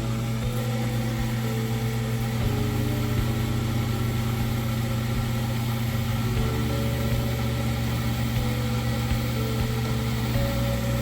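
Frigidaire front-load washer spinning its drum with the three-phase drive motor running. A steady hum sits under it, with a higher whine that steps in pitch. The drum bearings are dry and failing, which the repairer puts down to water getting past the rear drum seal.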